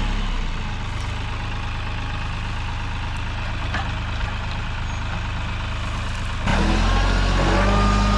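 Compact tractor engine running steadily, then about six and a half seconds in it suddenly gets louder, with a faint rising whine over it.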